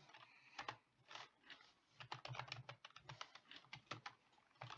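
Computer keyboard being typed on: a quick, irregular run of faint keystrokes, growing denser about halfway through.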